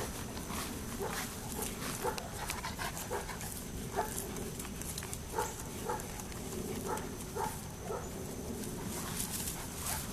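A dog making short, repeated sounds, about two a second.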